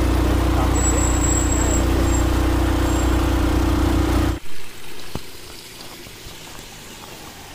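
Motor scooter riding along, its small engine running steadily under wind and road noise. It cuts off abruptly about four seconds in, leaving a much quieter outdoor background with a few faint clicks.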